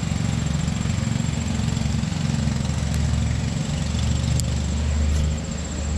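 Engine running steadily nearby, a low drone that wavers a little in strength.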